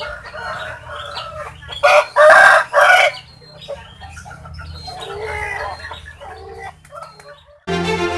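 Caged rooster crowing: one loud crow in three bursts about two seconds in, with shorter calls and clucks before and after. This is the unusual crow that its owner likens to calling the name "Jokowi".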